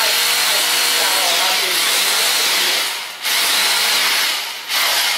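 Red corded hammer drill drilling upward into a ceiling, a steady loud grinding run that stops briefly about three seconds in and again just before the end, then restarts.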